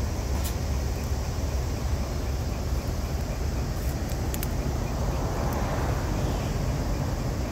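A large truck's diesel engine running steadily at idle, a deep, even rumble with no revving, with a few faint clicks about half a second in and again around four seconds in.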